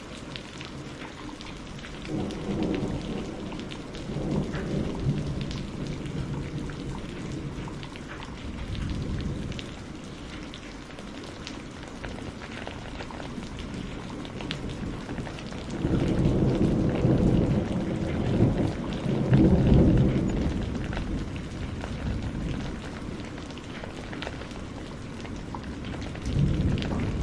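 Thunderstorm: steady rain with several rolls of low thunder. Shorter rumbles come a couple of seconds in and again around the middle, a long, loud roll swells up about two-thirds of the way through, and another begins near the end.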